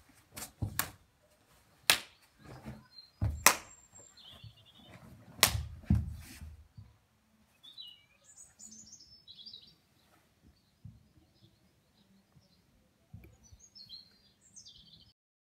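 Sharp slaps and snaps from a martial artist's strikes and uniform during a Sibpalki form, several in the first seven seconds, each with a low whoosh of movement. After that, small birds chirp in short bursts while the movements are quieter.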